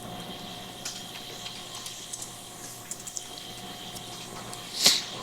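Steady machinery hum with a few faint clicks, and a brief loud hiss about five seconds in.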